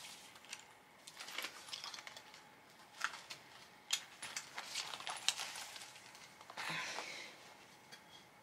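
Quiet handling of a fabric belt bag and its adjustable strap: soft rustling with a few small clicks and taps, and a longer rustle a little before the end.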